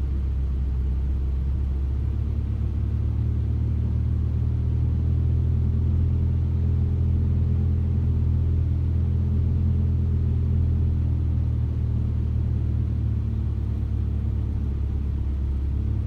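Nissan 240SX single-cam KA24E inline-four engine running at a steady idle, a low even drone that grows slightly louder in the middle and eases back.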